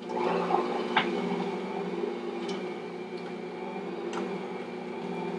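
Electric stand mixer running steadily with a motor hum as it mixes thick cookie dough with chopped macadamia nuts and white chocolate chips. A few light clicks sound over it, about a second in and again later.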